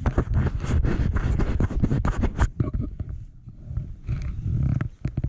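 Wind buffeting the microphone in loud, uneven gusts, with a rapid run of sharp clicks and rustles through the first two and a half seconds.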